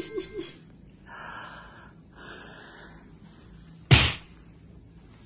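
A man breathing hard, two long gasping breaths, winded after a long walk in the heat. About four seconds in comes a single sharp knock of his hand on the desk.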